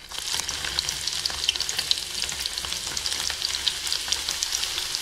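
Chopped garlic frying in hot oil with cumin seeds for a tadka: a steady sizzle full of small crackles and pops, breaking out suddenly as the garlic goes into the oil.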